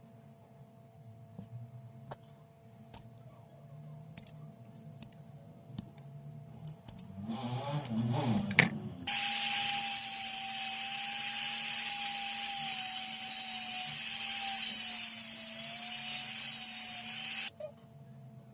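Light taps and clicks, then a small electric tool runs steadily for about eight seconds with a hiss and a faint wavering whine, starting and stopping abruptly.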